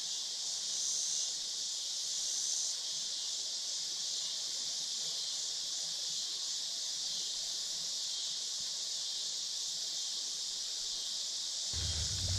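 Steady high-pitched chorus of insects, unbroken throughout. A low rumble comes in near the end.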